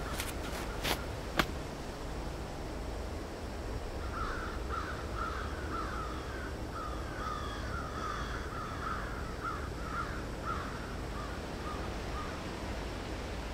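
A bird calling in a quick run of short, repeated calls for several seconds over a steady low background hiss, with a few sharp clicks in the first second and a half.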